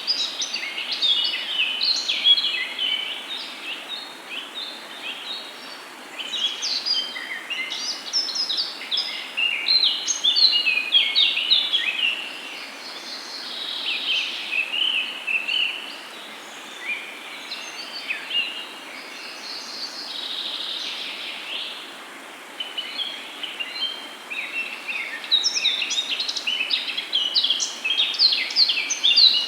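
Songbirds chirping and singing, several overlapping, in busy bouts with short lulls between them over a faint steady background hiss of outdoor ambience.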